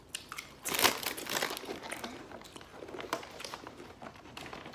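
Crinkling and rustling of a plastic snack-chip bag being handled, with many short crackles and a louder burst of rustling about a second in.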